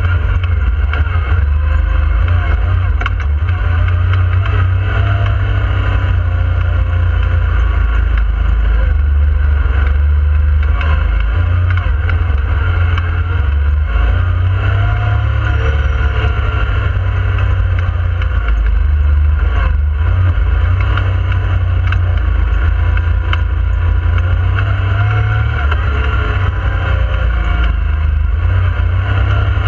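Yamaha YXZ1000R side-by-side's inline three-cylinder engine running under load as it drives, revs rising and falling several times, heard from inside the cab over a steady low rumble.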